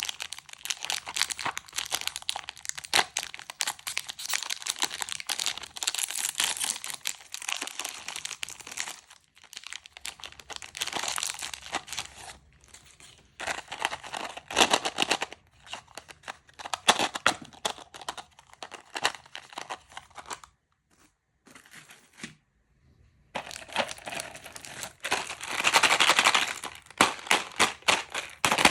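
Plastic candy wrappers crinkling and tearing as sweets are unwrapped, in uneven bursts of crackling with a pause of a few seconds about three-quarters of the way through.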